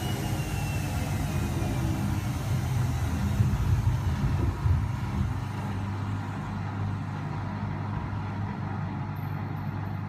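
Front-loading washing machine drum slowing at the end of an unbalanced spin: a low rumble with a few louder knocks about three to five seconds in, settling to a steadier low hum as the drum winds down.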